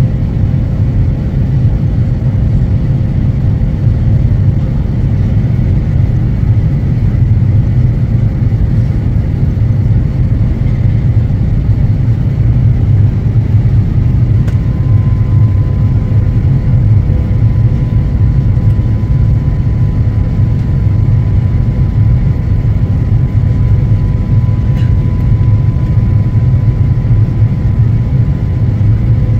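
Steady loud rumble of a jet airliner's engines and airflow heard inside the passenger cabin, with a faint thin whine that shifts higher about halfway through.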